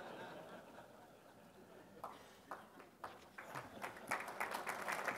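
Audience applause: a few scattered claps about two seconds in, growing into steady clapping from about four seconds.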